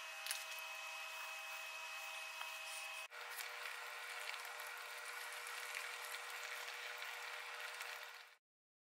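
Pork rib tips and potatoes simmering in adobo sauce in a pan: a steady sizzle with small pops, with a brief break about three seconds in and a sudden stop near the end.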